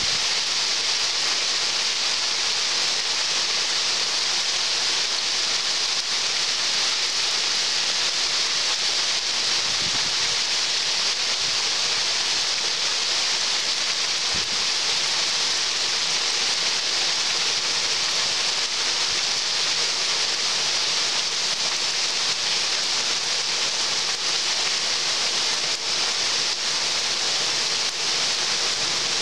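Heavy thunderstorm rain pouring down steadily, an even, dense hiss that holds at one level throughout.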